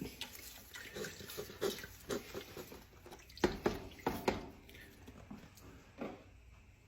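Liquid sloshing in a large soup pot of broth and vegetables, with irregular light knocks and clicks, the loudest a few near the middle.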